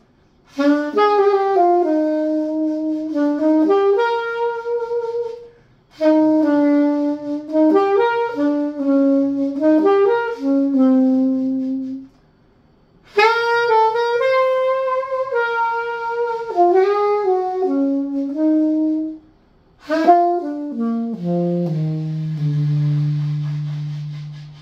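Alto saxophone being play-tested after a repair, playing four melodic phrases separated by short breaths. The last phrase steps down to a long held low note.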